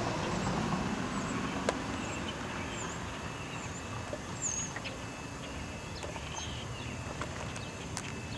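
Outdoor ambience: a steady low rumble with a few small birds giving short, high chirps now and then. Two sharp clicks, one about two seconds in and one near the end.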